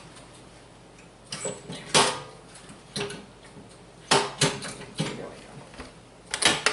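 Several separate knocks and clunks of foil-wrapped wood blocks and metal being handled at an open wood stove as the blocks are laid inside.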